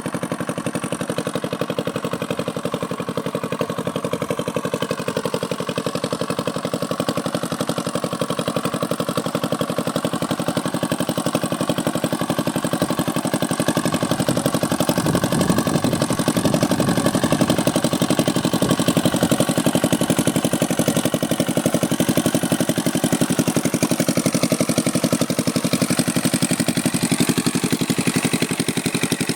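An irrigation water pump's engine running steadily, with water gushing out. It grows a little louder about halfway through.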